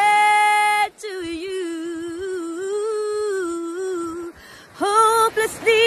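A woman's voice singing unaccompanied, holding long notes. One held note comes first, then a long wavering note for about three seconds; after a short pause the singing picks up again near the end.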